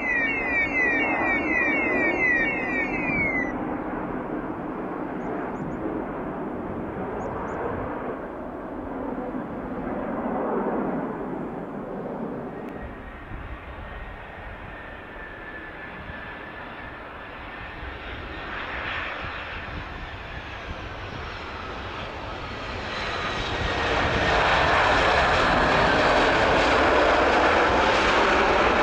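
Jet airliner engines running, a steady rushing noise that swells and eases as aircraft move about the airfield, with a rapid run of repeating high falling chirps over the first few seconds. About 23 seconds in it grows much louder and stays loud as an Airbus A320-family airliner's engines run on the runway close by.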